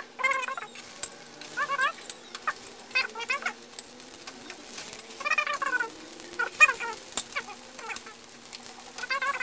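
A cat meowing over and over, short high calls every second or two, with a few sharp clicks in between.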